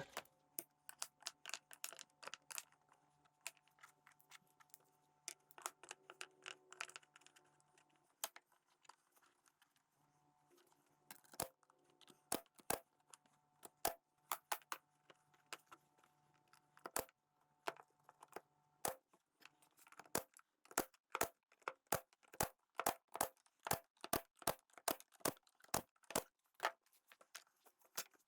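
Faint, scattered sharp clicks and knocks from wooden rack parts and tubes being handled and fastened, over a faint steady hum. The hum stops about two thirds of the way through, and the clicks then come thicker and quicker.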